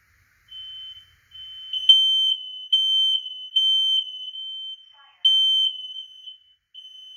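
Smoke alarms sounding their high-pitched beeping alarm tone. Three loud beeps come in quick succession, then a pause, then the cycle starts again, which is the temporal-three evacuation pattern. Fainter beeping at the same pitch carries on between the loud beeps.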